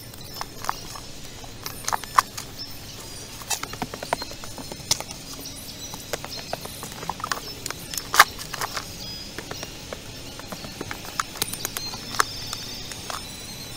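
Loose stones and gravel clacking against one another as they are scraped up by gloved hands from a rocky pit floor, in irregular sharp knocks with some a good deal louder than others.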